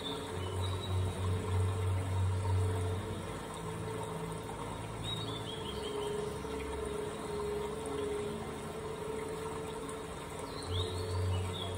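A steady low hum over a noisy background. The hum drops away after about three seconds and comes back near the end, and two brief runs of high, falling chirps come about five seconds in and near the end.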